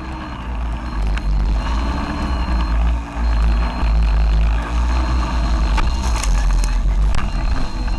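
Multirotor drone heard through its own onboard camera: steady motor and propeller noise under a heavy low rumble of air buffeting the microphone, with a thin high whine that comes and goes. A few sharp clicks in the second half.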